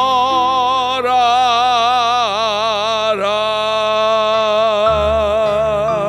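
Male singer holding one long sung note with wide vibrato over piano accompaniment. The pitch steps down about two seconds in, and a low piano note comes in near the end.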